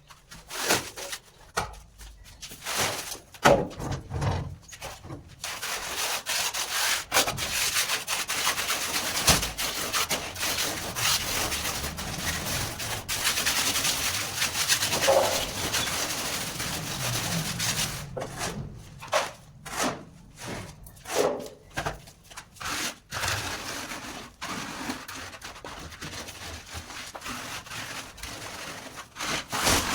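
A hand tool rubbing and scraping over cement. There are separate strokes at first, then a continuous stretch of rubbing, then separate strokes again past the middle.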